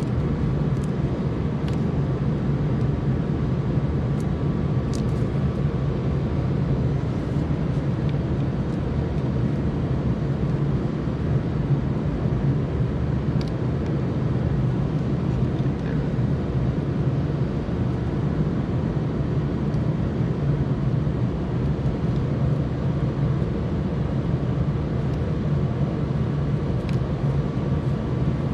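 A steady machine drone with a constant low hum, unchanging in level, with a few faint light clicks over it.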